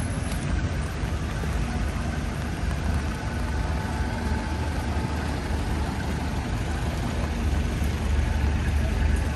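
City street traffic: vehicle engines running and idling, a steady low rumble with hiss over it.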